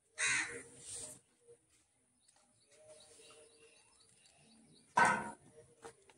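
Crows cawing outdoors: a few harsh caws, one loud one just after the start and another about five seconds in.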